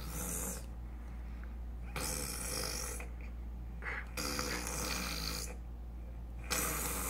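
A child making breathy, noisy mouth sounds in a voice play, four bursts of about a second each, one every two seconds or so.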